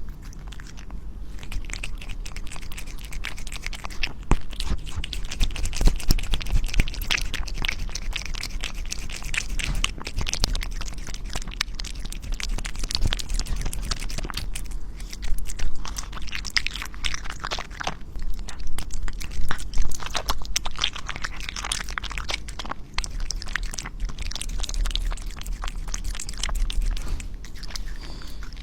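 A cat chewing and biting raw food close to the microphone: a dense, irregular run of quick sharp clicks of chewing.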